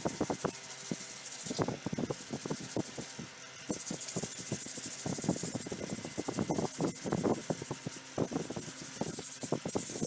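A hand rubbing across the steel axe head clamped in a bench vise: irregular short scraping strokes over a steady hiss that cuts out briefly twice near the start.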